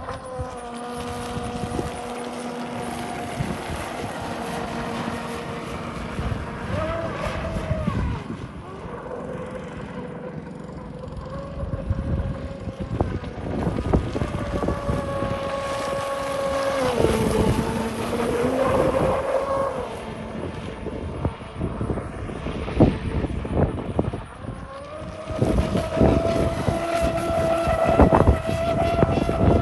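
Arrma Zelos 48 twin-motor brushless RC catamaran running fast on an 8S battery: an electric whine whose pitch falls and rises with the throttle, over the hiss of spray.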